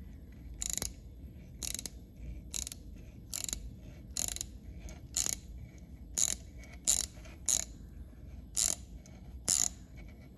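Small hand ratchet clicking in eleven short bursts, roughly one a second, as it turns a thread tap into a drilled-out stripped bolt hole in a Stihl MS361 chainsaw's engine case, cutting new threads for a Helicoil insert.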